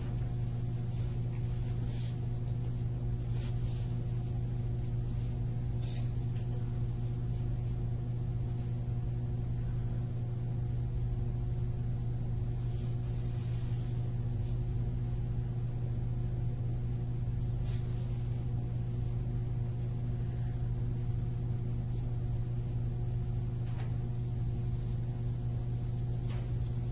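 Steady low electrical hum, a mains-type buzz in the room or recording system, with a few faint soft ticks and rustles scattered through it.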